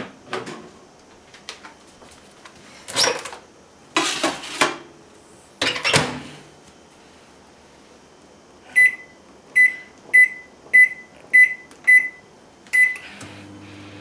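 A few knocks and clunks, then seven short beeps from a microwave oven's keypad as its buttons are pressed and a five-minute heating time is set. About a second before the end the oven starts running with a steady low hum.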